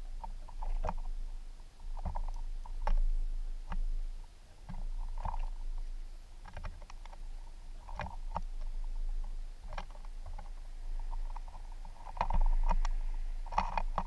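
Small birds pecking and cracking seed on a wooden platform feeder, making irregular small taps and clicks, one or two a second, close to the microphone.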